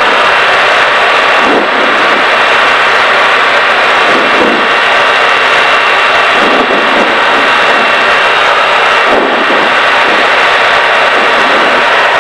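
Diamond DA40 light aircraft's engine and propeller running steadily, heard inside the cockpit in flight.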